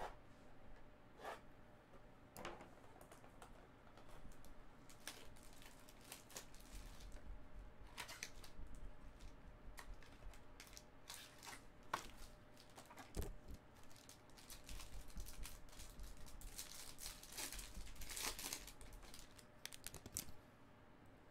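Faint tearing and crinkling of a Topps Museum Collection trading-card pack's wrapping and cardboard being opened by hand, with scattered clicks and taps of handling, the densest tearing near the end.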